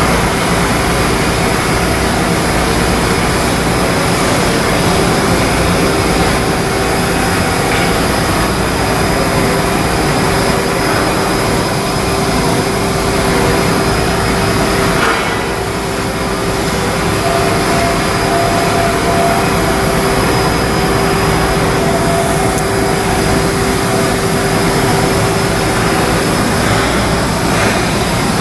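Loud, steady machinery drone with a constant hum, easing briefly about halfway through.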